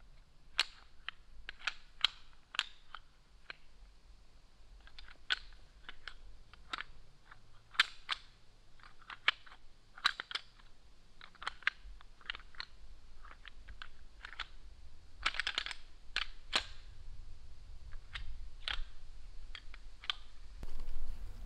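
Irregular sharp clicks and ticks scattered through, with a quick run of clicks about fifteen seconds in.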